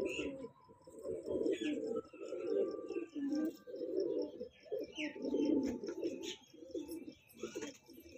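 Domestic pigeons cooing: low, repeated coos following one another almost without pause, with a few faint higher chirps above them.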